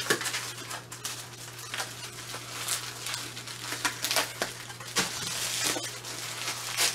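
Rustling and crinkling of a small cardboard box and plastic bags being handled and opened, with irregular sharp crackles, while ink cartridges are unpacked by hand. A steady low hum runs underneath.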